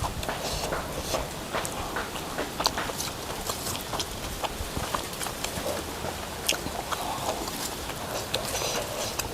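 Close-up eating sounds: chewing with irregular wet clicks and smacks of the mouth.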